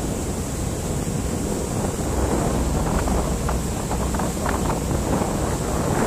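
Wind buffeting the microphone over the rushing and splashing of water churned up by a moving boat.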